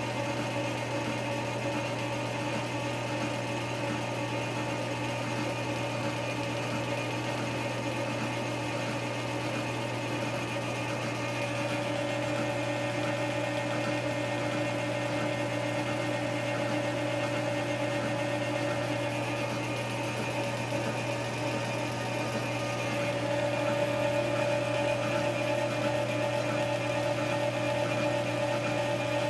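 Cisco metal lathe running under power feed while a boring bar takes a very light finishing cut inside a drive sprocket's bore. The machine gives a steady hum and whine, a little louder in the second half.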